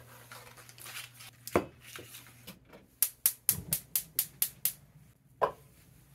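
A plastic package rustles with a couple of knocks. Then a gas stove burner is lit under a frying pan: a quick run of about eight sharp igniter clicks, about four a second. Just before the end comes a single soft thud as a cube of butter drops into the pan.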